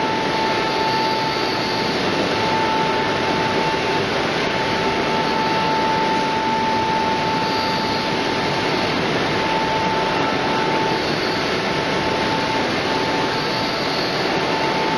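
French fry production line machinery running: a steady, dense hum with a steady whining tone through it that drops out briefly a few times.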